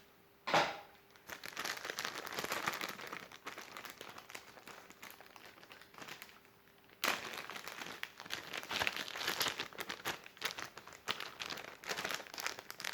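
Packaging crinkling and rustling as it is opened by hand. It eases off in the middle and starts again suddenly about seven seconds in.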